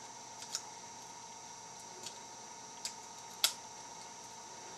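A few light, scattered metallic clicks of a snake rake working the pins of a padlock, with a sharper click about three and a half seconds in, over a faint steady hum.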